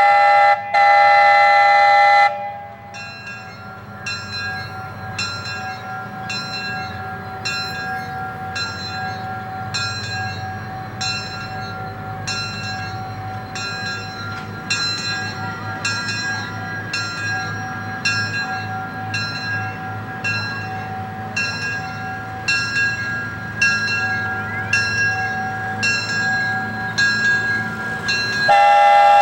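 Locomotive #19 sounds a loud blast of about two seconds on its whistle. Its bell then rings steadily, about one and a half strikes a second, over the low rumble of the moving train. A second whistle blast starts near the end.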